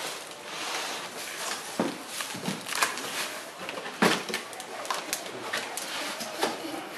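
A cardboard shipping box being opened by hand: flaps and inner cardboard scraping and rustling, with a series of sharp cardboard knocks and clicks, the loudest about four seconds in.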